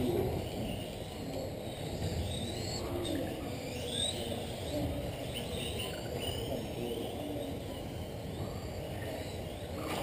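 Electric RC race cars lapping a carpet track. Their motors and gears make many overlapping whines that rise and fall as the cars accelerate and brake, over a steady low noise.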